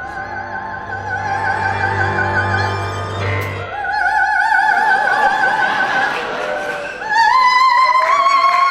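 A woman singing in operatic style, holding long notes with wide vibrato over a sustained accompaniment. About seven seconds in she climbs to a higher, louder final note and holds it.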